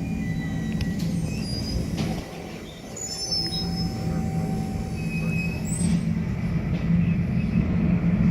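Steady low rumble of jet airliner engines heard from inside the airport terminal, with a few brief high squeals and a short dip in loudness about two seconds in.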